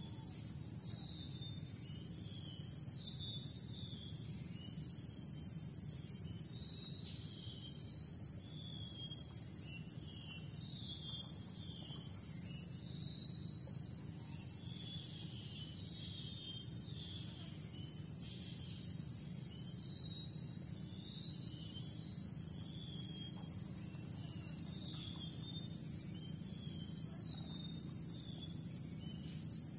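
Insect chorus droning steadily at a high pitch, with many short, high chirps over it.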